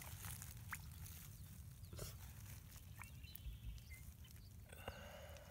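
Quiet outdoor ambience: a low steady rumble, a few faint soft clicks, and faint distant animal calls about three seconds in and again near the end.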